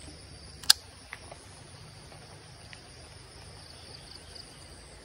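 Steady high-pitched chirring of insects over a light rain hiss, with one sharp loud click less than a second in and a fainter click just after.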